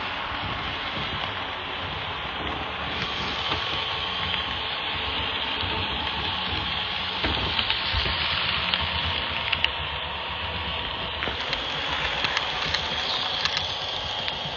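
Model Rock Island bilevel commuter train running along the layout's track: a steady whirring hiss of wheels and motor, with scattered light clicks.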